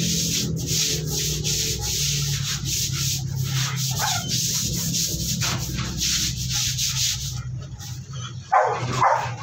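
Broom scrubbing a wet, soapy concrete floor in quick strokes, about two a second. Near the end a dog barks a few times, loudly.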